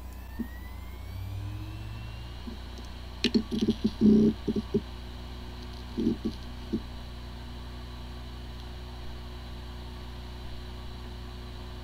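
Hard drive with corrupted disk firmware running. A whine rises over the first two seconds, then come two short clusters of clicks and knocks, about three to five and six to seven seconds in, then a steady running hum. It sounds like a healthy drive, yet the computer cannot detect it.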